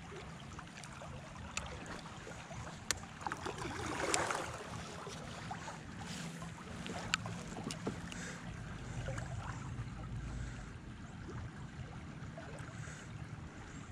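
Faint, steady river-water and wind noise around a drifting kayak, with scattered small clicks from handling a spinning rod and reel and a brief swell of noise about four seconds in.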